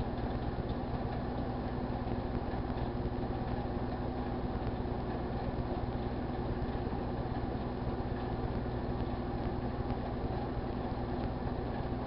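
GE Dual Wave microwave oven running: a steady, even hum from its transformer and fan.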